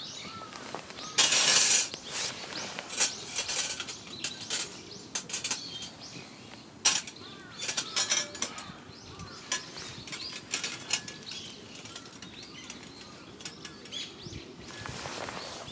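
Camp gear being handled: a loud rustle about a second in, then irregular clinks and knocks for several seconds, tapering off. Birds chirp faintly in the background.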